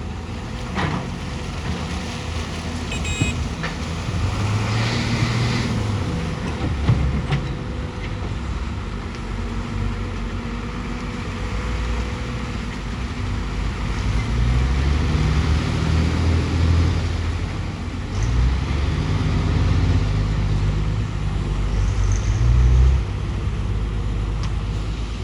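Excavator's diesel engine running, its pitch repeatedly rising and falling as the machine works, with a few clunks.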